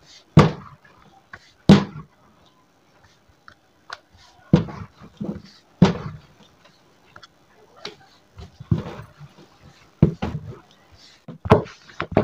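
Wooden rolling pin knocking and rolling against a round rolling board as a ball of dough is rolled out flat: a string of irregular knocks, about one a second.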